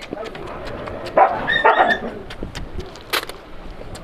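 A dog barking twice, in two short barks about a second in, with sharp clicks scattered around them.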